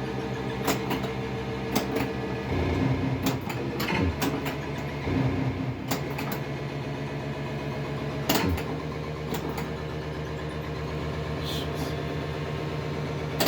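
Williams Alien Poker pinball machine in play: its electronic background drone sounds steadily, stepping to a new pitch about two and a half seconds in and again around six seconds, while sharp clicks and knocks from the ball, flippers and solenoids come at irregular moments.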